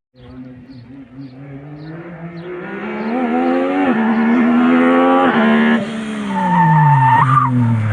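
Race car engine, faint at first and growing steadily louder, revving up through the gears with a gear change about four seconds in. Near the end a brief tyre squeal comes as the engine note falls off under braking.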